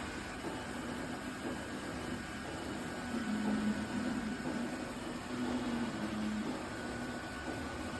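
iRobot Roomba Combo (Y0140) robot vacuum running, a steady motor whir with a low hum that swells and fades every second or so.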